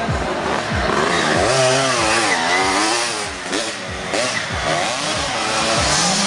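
Motocross bike engines revving at high pitch as riders work the track, the pitch climbing and dropping again and again through gear changes and throttle.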